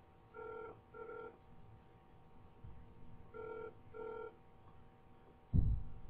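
Telephone ringback heard over a phone line while the call is transferred to another department: two double rings about three seconds apart. A low thump near the end.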